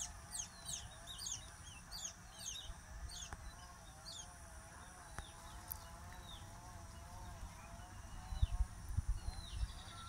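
Small birds chirping in quick, downward-sweeping notes, dense for the first few seconds and then thinning out. Under them runs the steady, wavering drone of a distant chainsaw.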